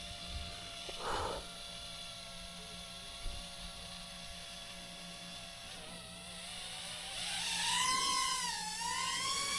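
BetaFPV Pavo20 FPV drone's motors and propellers whining at a steady pitch, with a brief whoosh about a second in. Near the end the whine rises and wavers up and down as the throttle changes.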